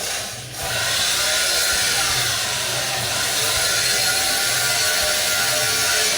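A machine running with a steady noise and a low pulsing rumble, dipping briefly about half a second in.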